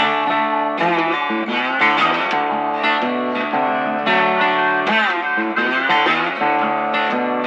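Background music: electric guitar playing a melody with bent notes over a steady chord backing.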